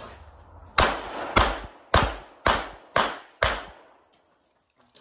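Six pistol shots fired in quick succession, about half a second apart, each followed by a brief echo.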